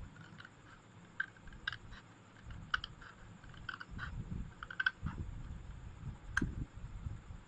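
Irregular light clicks and taps, about a dozen over the first five seconds, with low handling noise from a paper card being moved about, and one sharper click about six seconds in.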